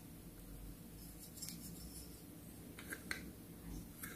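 Small plastic toy pieces being handled: a few faint, light plastic clicks, two close together about three seconds in and another near the end.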